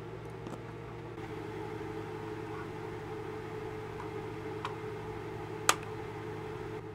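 Small plastic clicks from handling a gaming mouse's plastic shell: a few faint ticks, then one sharp click near the end. A steady low hum runs underneath.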